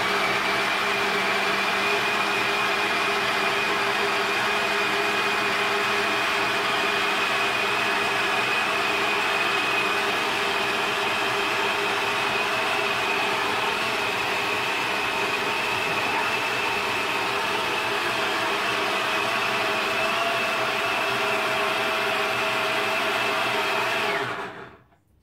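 Jug blender of a blender and food processor combo running steadily with a high whine as it purées roasted vegetables in hot stock into soup. It switches off suddenly near the end.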